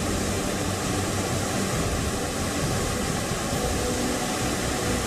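River in flood rushing fast: a steady, even noise of churning floodwater, swollen by heavy rain.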